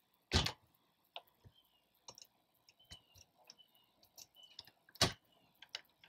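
RV entry door's lock hardware being worked by hand with a key: a loud clunk about half a second in and another about five seconds in, with small metallic clicks and rattles from the handle and deadbolt in between.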